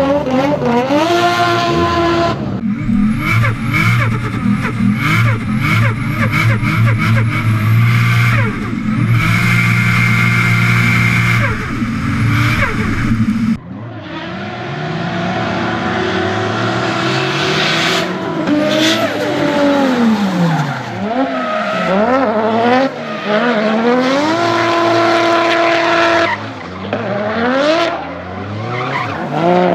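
Turbocharged Toyota 1JZ-GTE 2.5-litre straight-six in a Nissan Silvia S15 revving up and down again and again while drifting, with the tyres squealing. The engine holds a steadier high-rev note for several seconds, then after a break about 13 seconds in returns to quick rising and falling revs.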